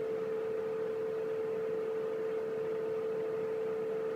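A steady hum held at one middle pitch, with a faint hiss underneath.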